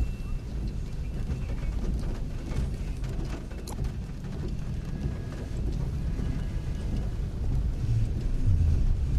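Heavy rain and vehicles moving through a flooded street: a steady low rumble under a hiss of rain, growing louder near the end.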